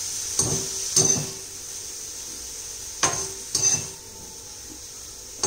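Metal spoon scraping sautéed onions out of a steel kadai, with sharp metal-on-metal knocks: two in the first second and two more around three seconds in.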